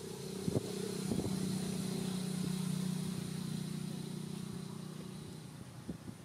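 A motor vehicle's engine droning at one steady low pitch, swelling and then fading away over about five seconds as it passes. A couple of sharp clicks sound in the first second.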